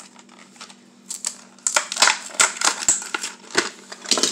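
Hot Wheels blister pack being opened by hand: the plastic bubble crackling and the cardboard card tearing in a quick run of sharp crackles. It starts about a second in and is loudest in the second half.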